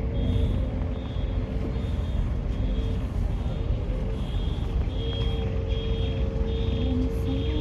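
A vehicle's low running rumble, with a short high electronic warning beep repeating steadily about every two-thirds of a second.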